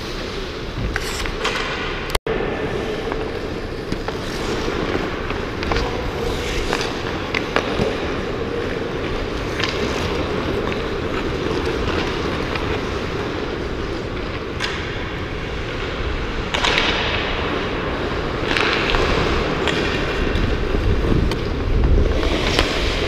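Ice hockey skates scraping and carving on rink ice, with scattered sharp clacks of sticks and puck. Longer hissing skate scrapes come several times in the second half.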